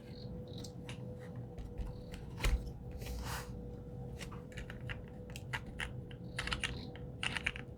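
Typing on a mechanical keyboard with lubed, filmed Gateron Milky Yellow linear switches on a POM plate in an acrylic case: uneven keystroke clacks, with a heavier stroke about two and a half seconds in. A faint steady hum runs underneath.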